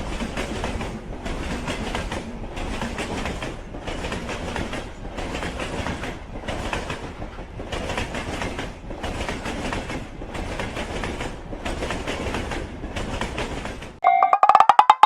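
A train running past, its wheels clattering over the rail joints in an even rhythm of about one and a half beats a second. About a second before the end it cuts abruptly to rapid clicking with steady electronic tones.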